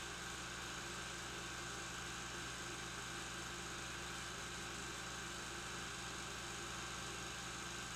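Steady low hum with a faint hiss, the background noise of an old 16mm film soundtrack; no other sound.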